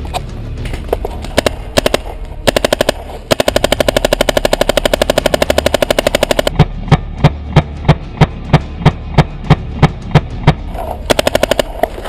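Paintball marker firing: a few single shots, then a rapid string of about three seconds, then spaced shots about three a second, and another quick burst near the end.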